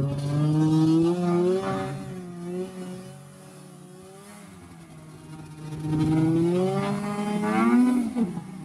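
2005 Arctic Cat Sabercat snowmobile's two-stroke engine running under throttle, easing off about three seconds in, revving back up about six seconds in, then cutting back sharply near the end.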